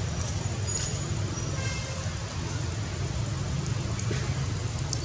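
Steady outdoor background noise: a low rumble with an even hiss over it, and no distinct events.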